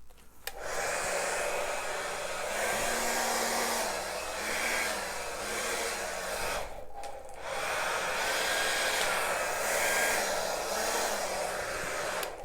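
Hand-held blow dryer running, blowing wet poured acrylic paint across a canvas. It switches on about half a second in and cuts out briefly about seven seconds in, and its motor hum wavers in pitch.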